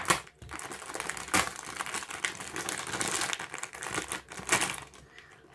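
Packaging crinkling and rustling as a water bottle holder is unwrapped by hand: a run of irregular crackles with a few sharper snaps, dying down near the end.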